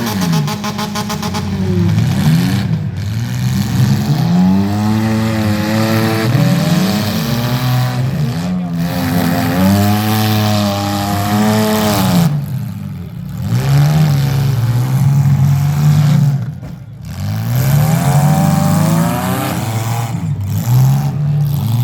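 Several demolition derby car engines revving, their pitch rising and falling over and over as the cars accelerate and back off, with brief lulls.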